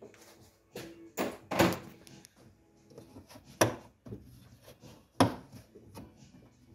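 Plastic interior trim on an Audi A3 8P's rear pillar being pulled and handled, giving a series of sharp clicks and knocks, three louder ones a second or two apart.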